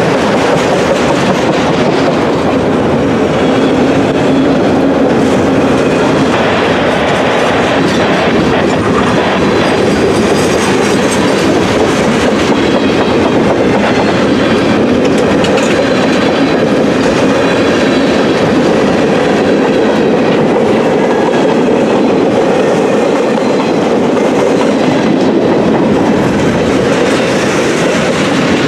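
Freight train passing close by: a loud, steady rumble of steel wheels on the rails as autorack, tank and flat cars roll past.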